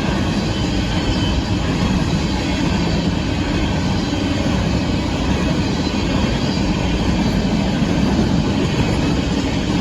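Freight cars of a Union Pacific grain train rolling past, a steady, loud noise of steel wheels on the rails.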